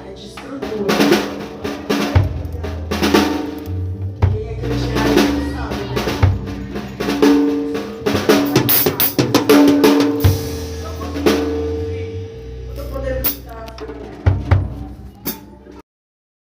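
Music played on a drum kit, with snare and bass drum hits and crashes over held notes and a bass line. It stops abruptly about a second before the end.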